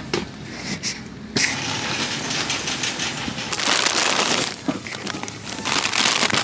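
Rustling and crinkling from snack packaging being handled and a handheld phone being moved about. The loudest stretches come about three and a half seconds in and again near the end, as a plastic chip bag is grabbed.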